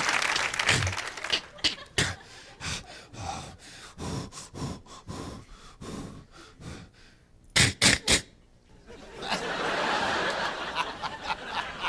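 Vocal sound effects made with the mouth into a microphone: a string of short gasps, breaths and clicks, then three loud sharp bursts in quick succession just past halfway, followed by studio audience laughter.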